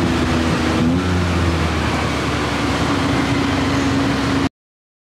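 Tuk-tuk engine running while the three-wheeler drives along a city street, with road and wind noise. The sound cuts off suddenly about four and a half seconds in.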